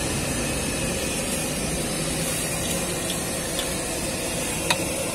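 Seblak soup boiling in a wide metal wok over a gas stove burner: a steady hiss. A few light ticks and one sharp clink near the end come from the metal ladle stirring against the wok.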